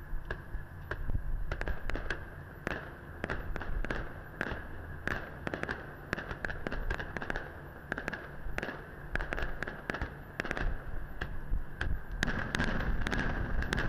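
Aerial fireworks going off: a quick run of sharp bangs and crackles that grows denser and louder near the end.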